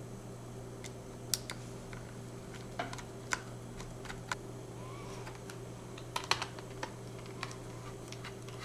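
Small screws and a Phillips screwdriver clicking and tapping irregularly as the mounting screws are set back into a MacBook Pro's optical-drive bay, over a steady low hum.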